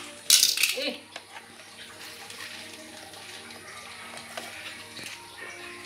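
Plastic toy race-track pieces being handled and fitted together: a brief loud scrape about half a second in, then faint knocks and clicks over a steady low hum.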